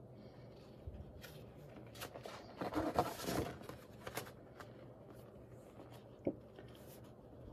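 Loose sheets of heavy coloring-book paper rustling and sliding against each other as pages are handled and turned, loudest about three seconds in, with a few light taps.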